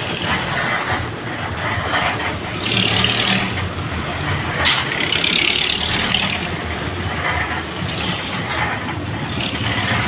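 Concrete mixer's engine running steadily during a concrete pour, with a single sharp clank about halfway through.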